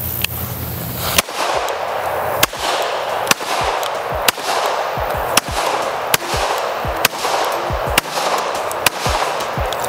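Colt 1911 railgun pistol in .45 ACP fired repeatedly, about one sharp shot a second, over a trap music track with deep falling bass notes.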